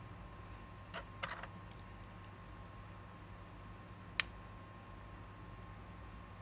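Small metal clicks and taps of watchmaker's tools on a Titus automatic watch movement in its holder: a quick cluster of light clicks about a second in, then one sharp, louder click about four seconds in.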